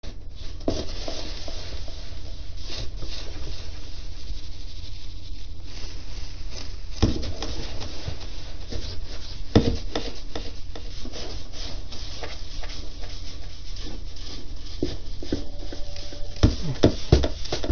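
Plastic litter scoop scraping and sifting through cat litter in a plastic litter box, the litter rustling and grating continuously, with a couple of sharper knocks partway through.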